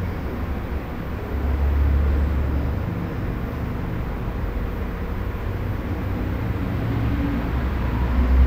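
Residential room tone: a steady deep rumble under a faint hiss, swelling a little about one and a half seconds in and again near the end.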